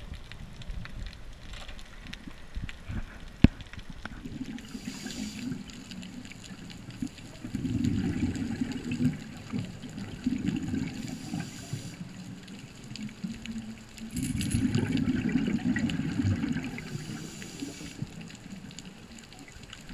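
A scuba diver's regulator breathing underwater: a short hiss on each inhale, then a longer, louder burst of exhaled bubbles, twice. A single sharp click comes about three and a half seconds in.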